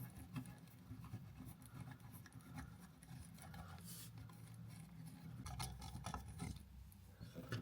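Faint scraping and clicking of a screwdriver turning a screw out of an electrical outlet.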